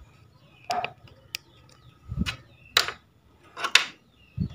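A handful of separate knocks, clicks and short scraping rustles, the noise of hands handling objects and wiring on a workbench.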